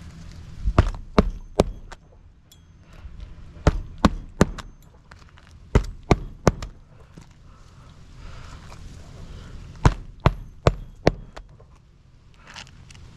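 Roofing nails being hammered through a replacement asphalt shingle: four groups of sharp strikes, three or four blows each, with short pauses between groups.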